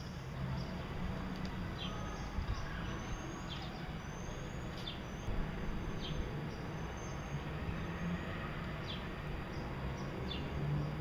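Small cage birds chirping: short chirps that drop in pitch, roughly one a second, with faint rising whistles between them, over a steady low hum.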